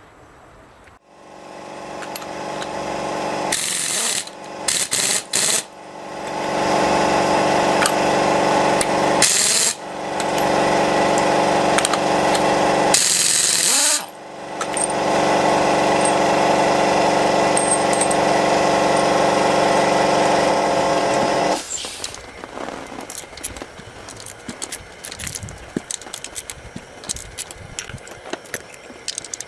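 Power tool running in several long bursts, each one spinning up, with short stops between them; it shuts off about two-thirds of the way through, leaving light clicks and rattles of metal parts.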